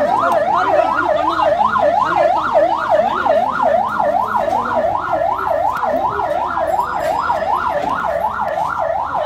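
Electronic siren in a fast yelp, its pitch rising and falling about three times a second, steady and loud throughout.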